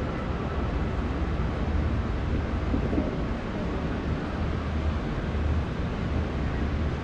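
Wind rumbling on the microphone, a low fluttering rumble over a steady outdoor background hiss.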